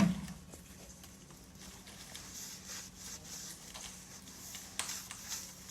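A sharp knock right at the start, then faint scattered taps and scratches over a steady low hum.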